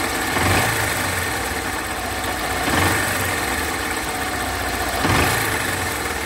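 Honda CG 160 Fan single-cylinder engine running at idle with a mechanical valve-train noise, rising briefly three times about every two and a half seconds. The noise comes from rocker arms and a rocker bearing worn loose by lack of oil.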